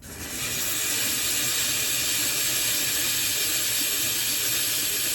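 120-grit diamond sanding pad being rubbed over the bottom of a fired ceramic pot: a loud, steady, rasping hiss.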